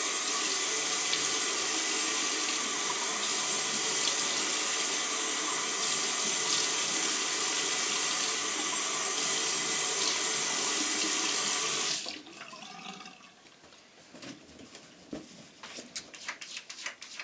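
Sink tap running steadily while someone wets their face, then turned off suddenly about twelve seconds in, leaving a few faint clicks.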